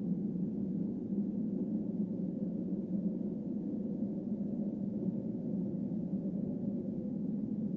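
A steady low droning hum with a faint held tone above it, unchanging throughout and without any sudden sounds.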